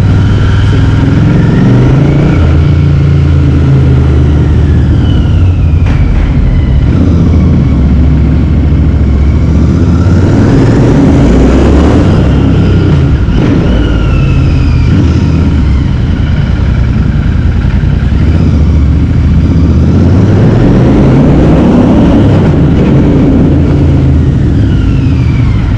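Royal Enfield Continental GT650's parallel-twin engine through a Power Race slip-on exhaust, under way. It revs up and eases off several times, the pitch climbing and falling again.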